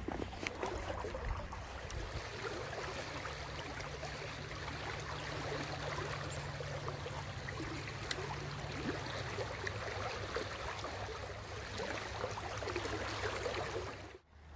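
Steady rushing and gurgling of a river's current flowing past close by. The sound drops away briefly near the end.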